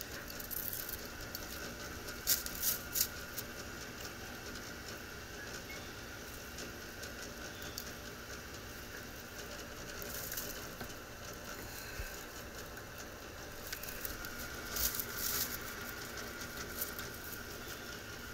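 Steady hum of a running gas pack HVAC unit, with a few light clicks and rattles scattered through it.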